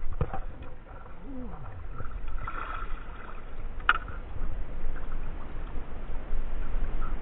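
Water sloshing against a plastic kayak's hull, with a couple of sharp knocks as a fishing rod is handled in its rod holder, over a steady low rumble.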